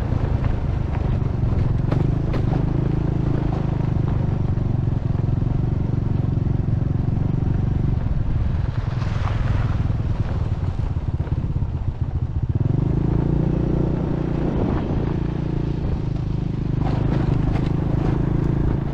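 Small motorcycle engine running steadily while riding, with rattle and road noise. The engine note drops away for a few seconds near the middle, leaving mostly rattle, then comes back.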